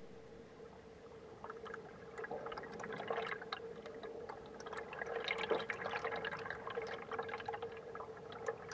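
River water heard underwater through an action camera's waterproof housing: a dense crackle of small ticks over a steady hum, the ticks thickening after the first second or so.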